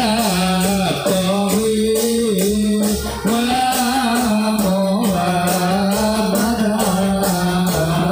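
Accompaniment music for an angguk dance: a held, wavering sung melody over a steady percussion beat.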